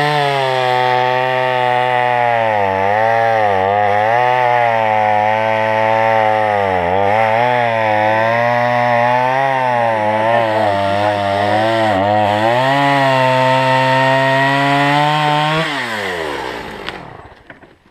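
Two-stroke chainsaw running at high revs through wood, its pitch dipping again and again as the engine bogs under the load of the cut. Near the end the throttle is let off and the engine winds down and stops.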